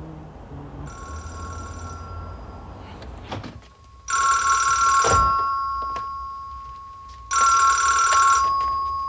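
Telephone ringing: three rings about three seconds apart, each about a second long and trailing off slowly. The first ring is fainter than the other two, which are loud.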